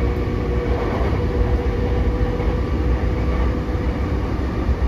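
JR East E233 series 7000 electric commuter train running between stations, heard from inside the car: a steady rumble of wheels and running gear on the rails. A steady hum fades out within the first couple of seconds.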